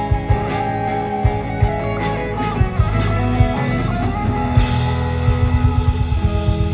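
Live rock band playing, led by an electric guitar solo of held notes that bend up and down in pitch, over bass and drums. A quick run of drum hits comes in over the last couple of seconds.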